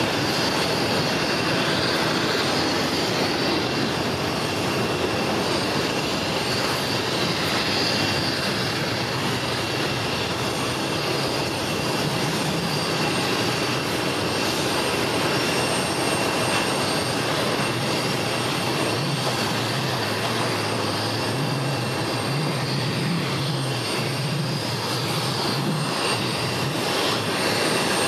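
Jet airliner engines running: a steady, even rush of noise with a thin high whine held over it.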